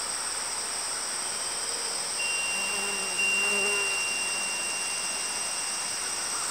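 Steady, high-pitched chorus of singing insects, with a thin, even tone joining in about two seconds in and fading out near the end.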